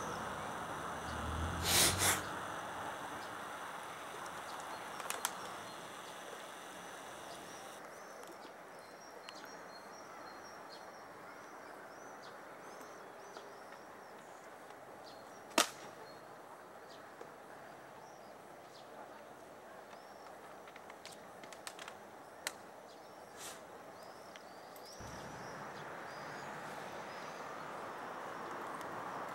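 Outdoor evening ambience: a steady hiss, with insects trilling for the first eight seconds or so and small birds chirping after that. A few sharp clicks, and the hiss grows louder near the end.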